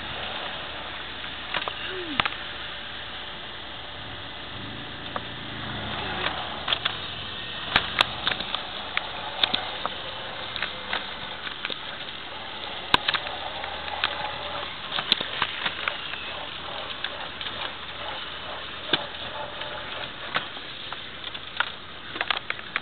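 A classic Mini Cooper driving slowly onto a wet track, heard from inside the cabin: steady engine and road noise, with scattered sharp clicks throughout.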